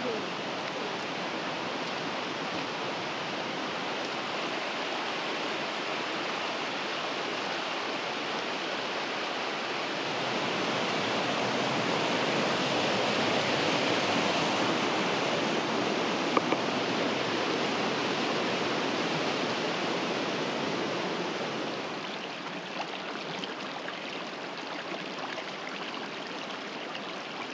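Rushing stream water, a steady rush that grows louder for a long middle stretch and then falls back.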